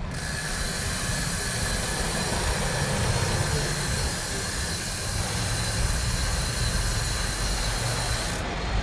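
Steady rushing noise of riding a mountain bike: wind on the microphone and tyres rolling, with a faint high whine. It starts abruptly and cuts off suddenly near the end.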